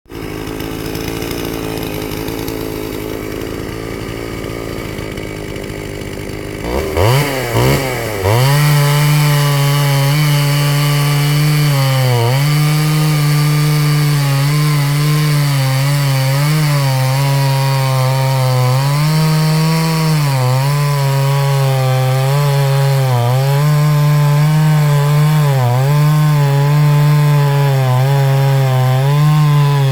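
Ported Pioneer Partner 450 two-stroke chainsaw with a custom exhaust running at low speed, then revved hard about seven seconds in. It then holds at high speed with small recurring dips in pitch, as the saw bogs slightly while cutting through oak.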